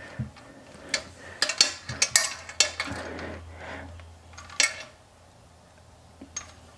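Metal plumbing fittings clinking and scraping as the water-supply line's nut is handled and threaded onto the bidet's fitting: a run of small clicks and scrapes for about five seconds, then only a faint click or two.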